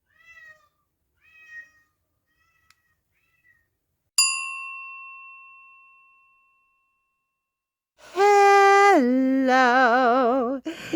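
Two short, faint cat meows, then a single bell chime struck about four seconds in that rings out and fades. Near the end, a person's voice sings long held notes, the lower one with a strong wavering vibrato.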